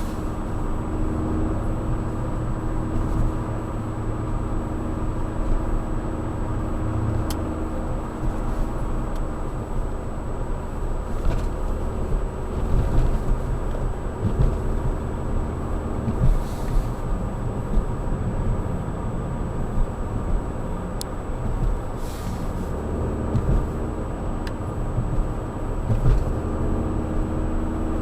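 Volkswagen GTI being driven, its engine running under a steady low rumble of road noise, the engine note climbing near the end.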